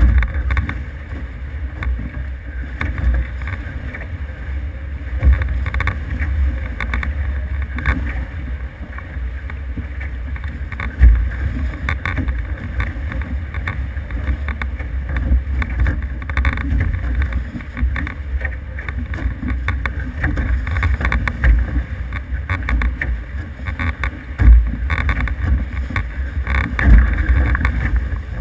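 Wind buffeting the microphone and water rushing past the hulls of an F18 racing catamaran under sail, with a deep gusty rumble and a few sharp thumps, the loudest about eleven seconds in and near the end.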